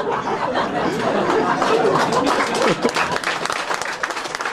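Live comedy-club audience laughing and applauding.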